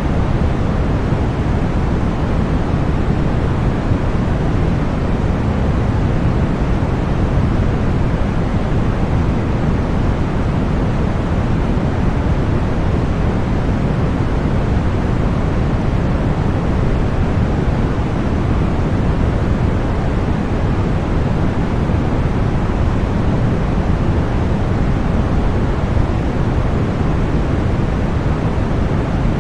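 Continuous electronically generated masking noise for tinnitus and sleep: a steady, unchanging rush, heavier in the bass than in the hiss above.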